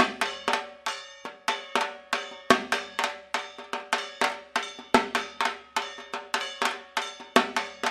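Dhak drums of Durga Puja beaten with sticks in a fast, driving rhythm of several strokes a second, with a heavier accented stroke about every two and a half seconds.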